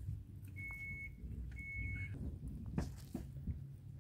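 Two short electronic beeps at the same high pitch, each about half a second long and a second apart, over a low rumble. A sharp knock follows about three seconds in.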